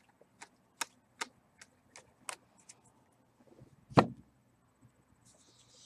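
Baseball trading cards being flicked through one at a time by hand, each card giving a faint click at a regular pace of roughly two or three a second, with a louder knock about four seconds in as cards are set down on the table.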